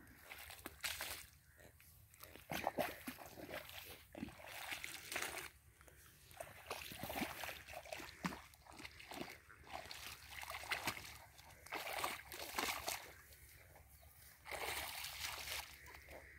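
Water and wet mud splashing and sloshing in irregular bursts as a hoe and hands scoop mud in a flooded irrigation channel. The mud is being heaped into an earthen bund to shut off a wheat plot that has filled with water.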